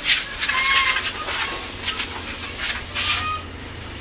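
Aerosol spray-paint can hissing in short, repeated bursts as the box is painted, stopping abruptly near the end.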